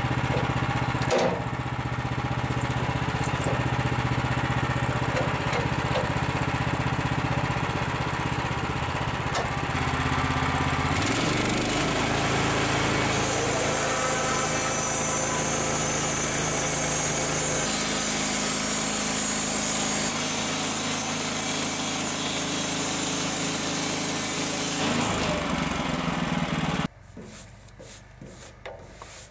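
Woodland Mills HM130Max portable bandsaw mill running, its gasoline engine driving the band blade through an old floor joist. The pitch and tone shift a couple of times partway through, and the sound cuts off suddenly near the end.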